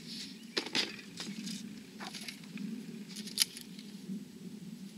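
A few sharp knocks as small green propane canisters are set down in a plastic storage bin, the loudest about a second in, followed by lighter handling clicks and rustles of a clipboard and pen.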